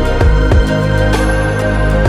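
Background music: calm new-age instrumental with held tones, a steady bass and a regular beat.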